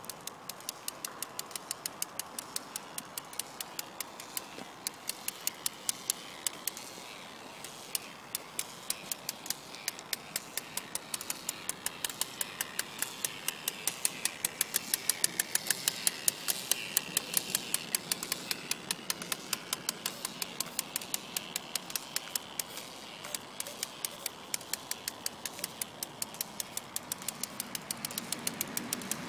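The geared K'nex-motor drive and paddle wheels of a homemade RC paddle boat running, with a steady rapid clicking about four times a second that grows louder partway through.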